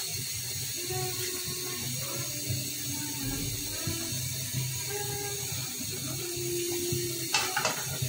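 Vegetables simmering in a karahi on a gas stove, giving a steady watery hiss. Near the end come a few quick metallic clicks as an aluminium lid is brought onto the pan.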